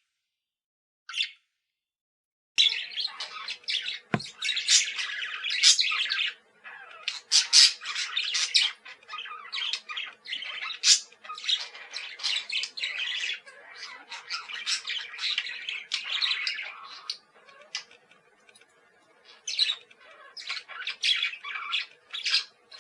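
Budgie chirping and chattering: a lone chirp, then a dense, rapid run of short chirps and squawks beginning a couple of seconds in, thinning briefly near the end before picking up again. A soft thump about four seconds in.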